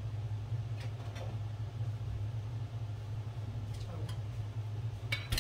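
Steady low mechanical hum with a few faint knocks. Near the end comes a short burst of clicking as the metal lid of a glass pickle jar is twisted open.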